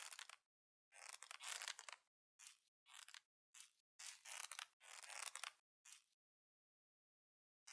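Squeeze ball being squeezed over and over, each squeeze a short crunchy crackle, about nine in a row, then a pause of over a second near the end.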